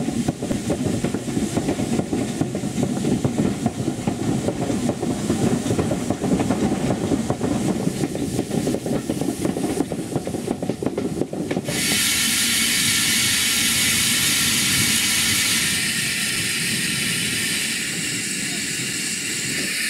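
A Robert Stephenson & Hawthorns 0-6-0 saddle-tank steam locomotive running along the line, heard close from its side. About twelve seconds in, the sound cuts to a steady, loud hiss of steam escaping from a standing locomotive's safety valves.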